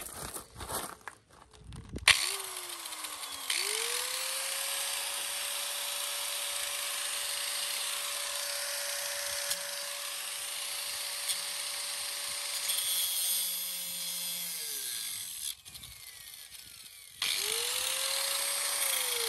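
Corded angle grinder cutting through a wheel screw that spins instead of unscrewing: a steady motor whine over a loud hiss of grinding metal, running for about twelve seconds before it winds down. It starts again near the end and winds down once more.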